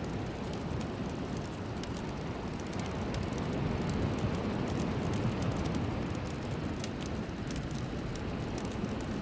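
Steady rushing noise, heaviest in the low end, with faint scattered crackles through it: the noise bed of a meditation soundtrack.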